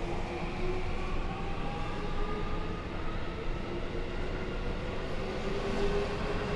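Electric train traction motors whining, the tones climbing slowly in pitch as the train picks up speed, over a steady low rumble.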